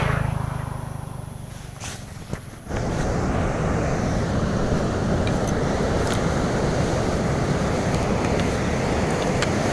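A motorcycle engine running and fading away over the first two seconds or so. After an abrupt cut, a steady rush of breaking surf.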